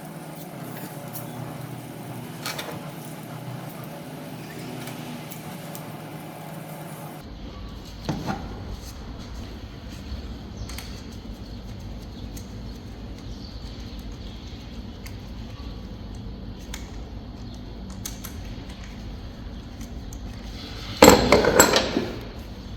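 Metal hand tools and parts clinking and knocking during work on an engine, with a loud metallic clatter lasting about a second near the end.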